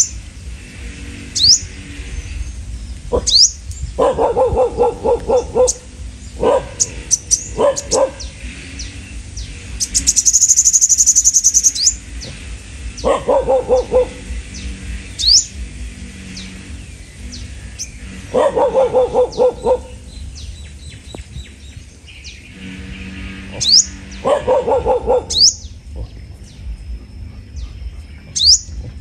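Small birds calling: short, high, upward-sweeping chirps repeated every second or two. Several quick runs of lower, harsh notes come in between them, and a buzzy high trill runs for about two seconds near the middle.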